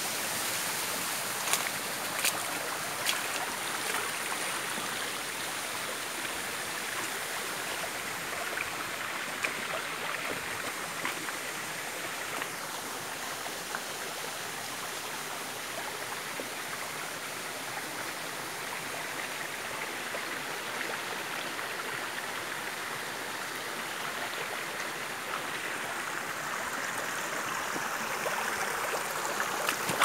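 Shallow forest stream running over stones, a steady trickling flow, with a few sharp clicks in the first few seconds.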